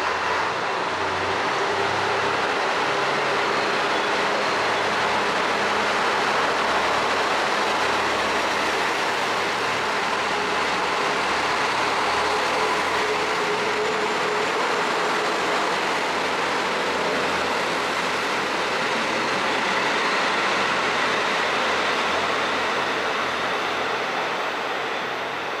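JR Kyushu 'Aso Boy' KiHa 183 series diesel railcar train running slowly along the platform, a steady mix of diesel engine running and wheels on the rails, with a faint engine tone that rises a little midway.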